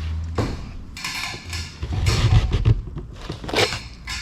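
Person climbing down a ladder: irregular scuffs, rustles and a few dull thuds of feet on the rungs, the heaviest thuds about two seconds in.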